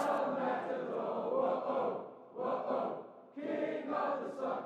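A large crowd of fans singing a chant together, heard faintly, in phrases of a second or two with short breaks between them.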